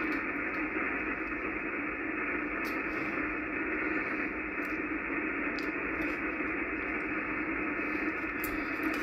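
Icom IC-746PRO HF transceiver's speaker giving a steady hiss of 80-meter band noise on an empty single-sideband channel between transmissions, cut off sharply above the voice range by the receiver's filter.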